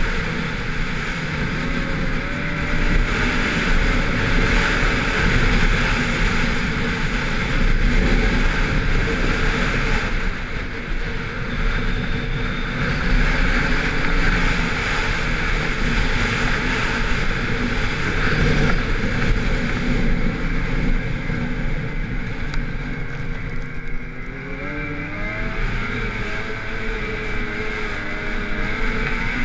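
Ski-Doo MXZ 850 snowmobile's two-stroke twin engine running hard under load as the sled climbs a snow slope. Its pitch rises and wavers in the last few seconds as the throttle changes.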